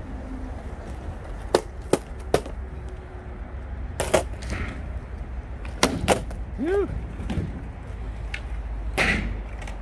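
Skateboard deck and wheels knocking on the pavement as the rider works a trick: a series of sharp clacks, three in quick succession about a second and a half in and more later, over a low steady rumble. There is a brief voiced exclamation a little past the middle.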